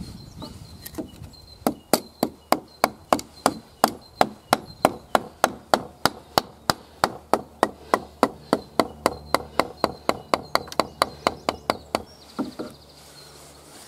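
A hammer strikes a wooden wedge again and again, about three sharp blows a second, driving it in under a timber beam to shim the frame's central support. The blows stop about twelve seconds in, with one last knock just after.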